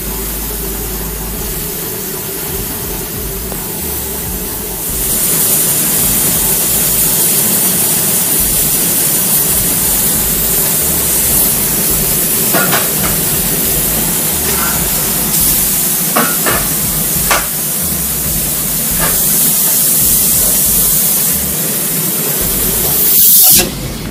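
Steam sterilizer hissing steadily, the hiss growing louder about five seconds in, with a few light knocks in the middle and a brief louder burst near the end.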